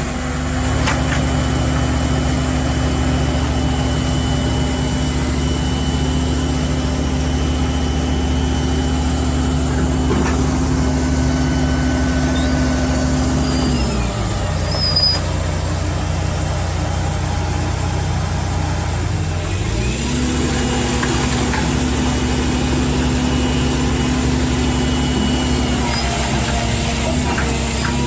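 Large engine of a heavy machine running steadily under load; about halfway through the engine speed drops and it runs lower for several seconds before revving back up to its former speed.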